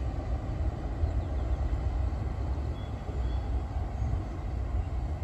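A steady low rumble that flickers in loudness but never stops.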